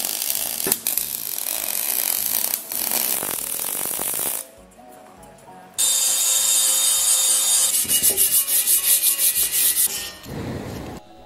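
Electric arc welding crackling on a steel square-tube frame, then, after a short pause, an angle grinder grinding the steel with a steady high whine. Near the end come quick even scraping strokes, about four or five a second, of hand sanding on the metal.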